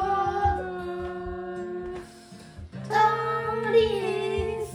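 Acoustic guitar strummed while a voice sings long, held notes. The singing drops away for most of a second about two seconds in, then comes back with another held line.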